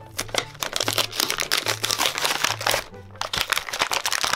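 Clear plastic packaging crinkling and crackling in dense, irregular bursts as a wind-up toy and its bag of jelly beans are pulled out of it, over background music with a plodding bass line.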